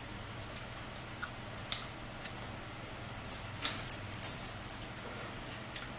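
A few faint clicks and light rustles, clustered about three to four seconds in, over a low steady hum.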